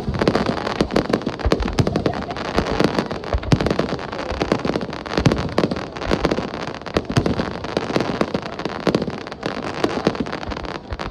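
Fireworks display: a dense, continuous run of crackling pops and bangs, many overlapping reports a second.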